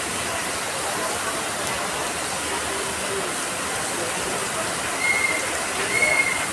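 Heavy rain falling steadily on flooded ground, an even hiss. Near the end, two short, high whistle-like notes come about a second apart.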